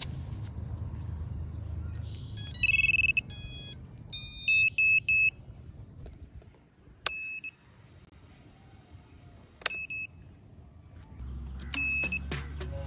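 Brushless motors of a 5-inch FPV quadcopter beeping their ESC start-up tones as the battery is connected, a quick run of short electronic beeps. A few single short beeps follow later, each with a sharp click.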